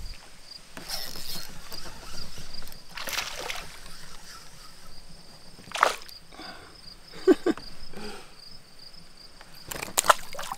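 Water splashing in several short bursts as a hooked bass is reeled in and lifted from the water into a canoe. A few sharp clicks come near the middle and near the end.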